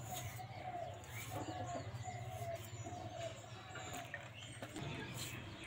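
A chicken clucking in a string of short, even calls, stopping about four seconds in, over a low steady hum.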